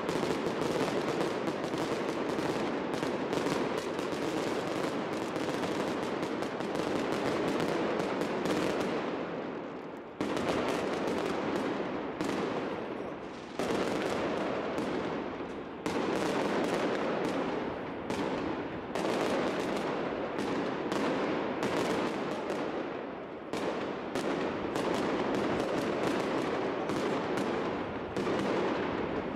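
An aerial fireworks display going off in dense, rapid volleys of bangs and crackles, like machine-gun fire. There is a brief lull about a third of the way in, and fresh barrages start abruptly several times after it.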